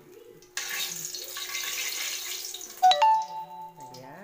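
Tilapia frying in hot oil in a wok: sizzling starts suddenly about half a second in and runs loudly for a couple of seconds. Near the end a loud high-pitched squeal lasts about a second.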